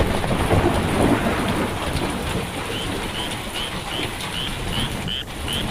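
Thick coconut-milk curry with sweet snails and cha-om leaves boiling in the pot: a dense, steady bubbling with many small pops.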